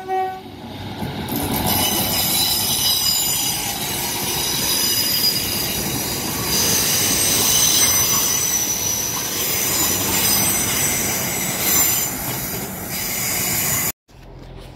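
Northern Class 150 Sprinter diesel multiple unit passing along the platform, its wheels squealing in a high-pitched whine over the rolling rail noise. The last note of its two-tone horn ends right at the start, and the sound drops off suddenly near the end.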